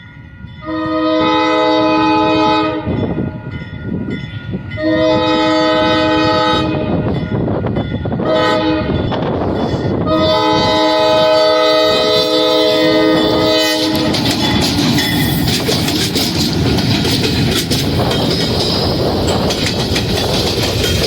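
Diesel locomotive's multi-chime horn blowing the grade-crossing signal, long, long, short, long, from an Alco RS-11. Then the train runs past, its wheels clacking over the rail joints.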